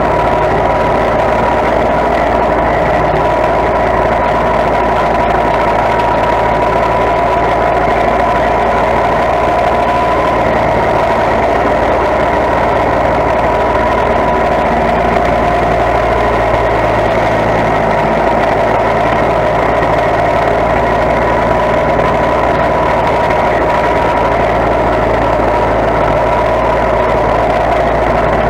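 Riding lawn mower engine running steadily at a constant speed, with an even high hum over a low rumble.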